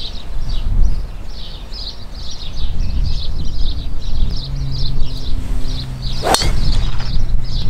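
Birds chirping steadily over a low rumble of wind on the microphone. About six seconds in, a golf driver strikes the ball off the tee with one sharp crack, the loudest sound.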